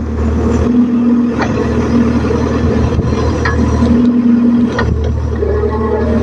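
Mahindra backhoe loader's diesel engine running steadily, with three brief sharp knocks along the way.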